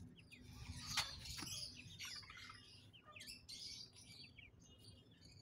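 Young francolins (teetar) chirping in a bamboo cage: many short, high chirps and quick glides. One sharp click sounds about a second in.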